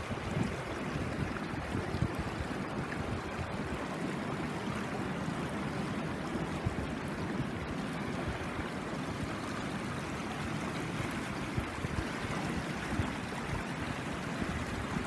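Valley stream running steadily, an even wash of flowing water.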